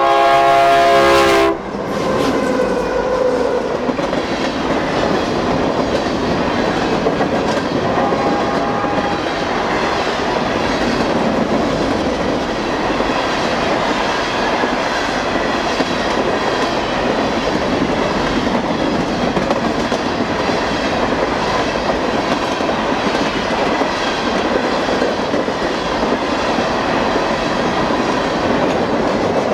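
BNSF ballast train passing close by. A loud horn blast cuts off about a second and a half in, then the cars roll by with a steady rumble and clickety-clack of wheels over the rail joints.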